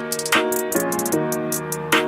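Background music: sustained instrumental chords that change every half second or so, over a steady drum beat with ticking hi-hats.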